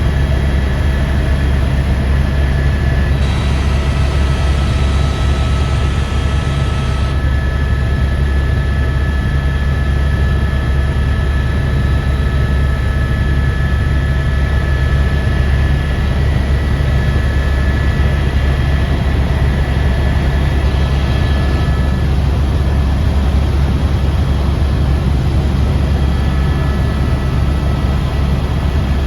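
Helicopter in flight: steady, loud engine and rotor noise with a thin high whine above it.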